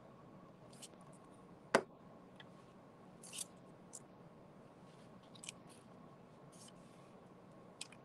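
Quiet room with scattered small clicks and rustles of handling, the loudest a single sharp click a little under two seconds in.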